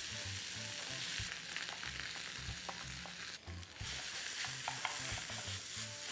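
Boiled mashed potato sizzling in hot oil tempered with mustard seeds, curry leaves and garlic, stirred and scraped around the pan with a wooden spatula. The steady sizzle has small ticks and scrapes through it and dips briefly about three and a half seconds in.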